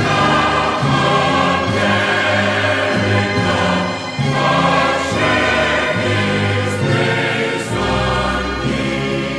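Orchestral music with a choir singing long held notes.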